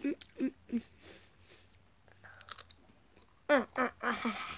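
A person crunching and chewing Pringles crisps, with short voiced sounds between bites. Near the end, louder mouth sounds are followed by a rustle as a hand reaches into the crisp tube.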